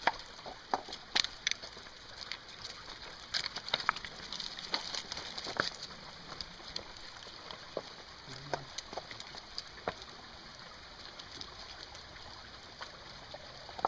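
Shallow creek water trickling, with sharp clicks and knocks of loose stream-bed stones shifting underfoot, thickest in the first few seconds and sparser after.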